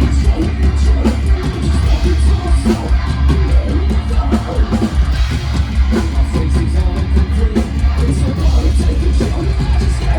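Metalcore band playing live and loud: heavy distorted guitars, bass and drums in a dense, continuous wall of sound.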